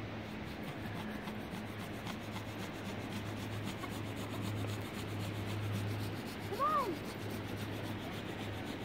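Hand saw cutting through the trunk of a small conifer, a steady, fairly quiet rasping of repeated strokes. A short high vocal call cuts in about two-thirds of the way through.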